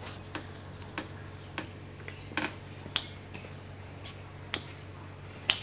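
A small dog chewing and mouthing a hard red bone-shaped chew toy on a tile floor: irregular sharp clicks and taps, about a dozen, with the loudest near the end.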